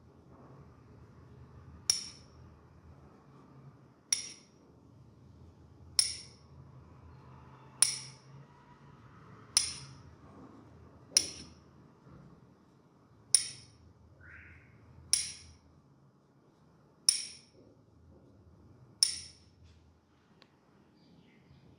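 Ten sharp clinks, evenly spaced about two seconds apart, each with a short bright ring.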